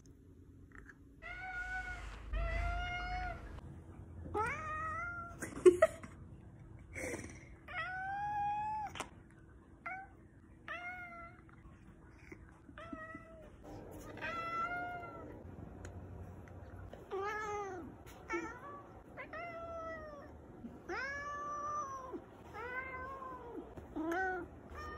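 A tabby house cat meowing over and over, about twenty short calls in quick succession, many rising and then falling in pitch. One sharp knock comes about six seconds in.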